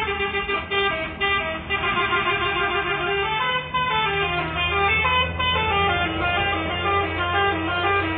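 Bus telolet horn: a set of air horns playing a quick, chord-like tooting melody that changes notes every fraction of a second. Underneath runs the steady low rumble of the bus engine.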